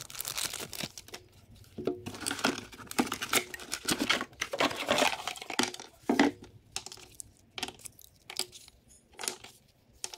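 Plastic packaging crinkling and a cardboard box rustling as a charger and its cables are unpacked by hand, with scattered light clicks and clinks of plug connectors on the bench.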